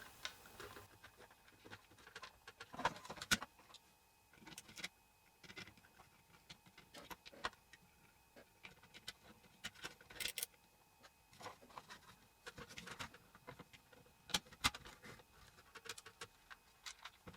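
Plastic parts of an airsoft M249 box magazine being handled and pressed together: scattered faint clicks and clacks as the gears and housing are worked into place.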